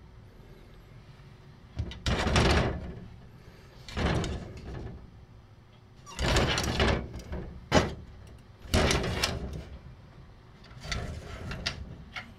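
A wooden, frosted-glass sliding door rattling and sliding in its track in about six short bursts, with one sharp knock partway through, as a dog pushes and paws at it from the other side and works it open a crack.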